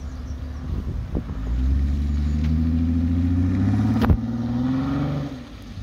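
Jeep Wrangler engine pulling under load on a muddy trail, its pitch rising slowly, then easing off near the end. About four seconds in a single sharp crack or crunch cuts through, the kind of unexplained crunch the owner is asking about.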